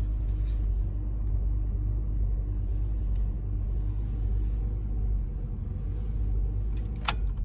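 2013 Honda Civic four-cylinder engine idling with a cylinder 1 misfire (code P0301), a steady low rumble with a faint uneven pulse. A single sharp click comes near the end.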